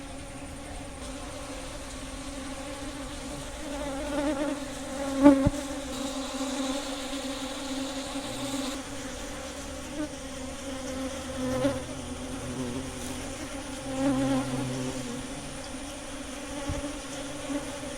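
A swarm of giant honey bees buzzing steadily around a sugar-syrup feeder. The buzz swells now and then as single bees fly close. A sharp tap about five seconds in is the loudest moment.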